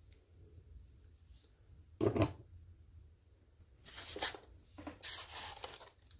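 A single thump about two seconds in as a model part is handled and set down, then a small plastic parts bag rustling and crinkling in the hands from about four seconds on.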